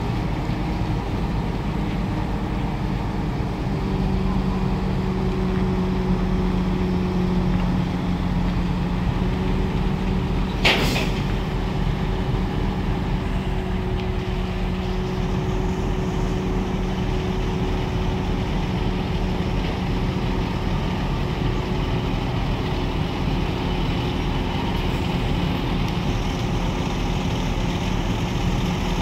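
Heavy diesel engine of a truck-mounted crane running steadily while it holds a shipping container aloft, with a steady droning note that comes up about four seconds in. A single short, sharp burst of noise sounds about eleven seconds in.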